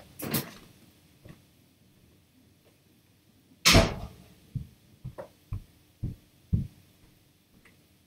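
Handling sounds at a stereo microscope while it is brought into focus on a specimen: one louder bump with a short scrape about three and a half seconds in, then five soft, dull knocks over the next three seconds.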